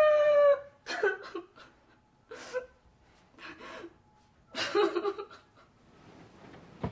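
A girl's voice crying out with a falling pitch at the start, then short broken whimpers and sobs with quiet gaps between them.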